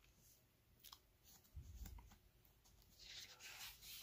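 Faint rustling of book pages being turned by hand, with a light tick and a soft bump as the book is handled.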